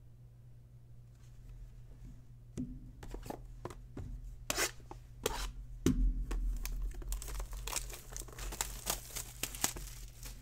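Plastic wrapper of a trading card pack being torn open and crinkled by hand. It starts with a few scattered rustles and clicks and becomes dense, continuous crinkling over the last few seconds.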